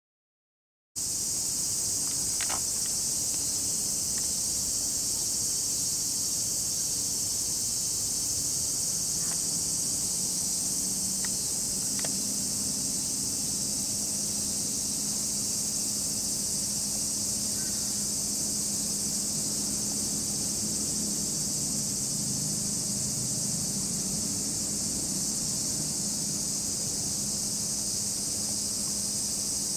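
Steady high-pitched drone of insects chirring, starting about a second in, over a faint low hum and a few light clicks.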